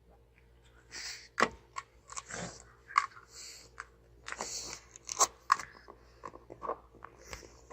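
A pug making irregular wet mouth clicks and smacks, with a few short hissing breaths through its nose. There is no steady snoring rhythm.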